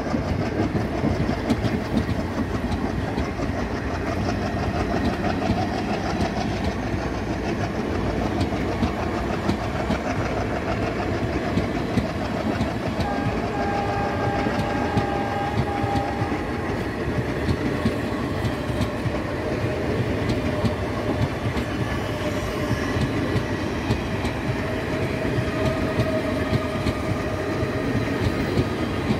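Passenger coaches of a train rolling past close by, their wheels clattering over the rail joints in a steady clickety-clack.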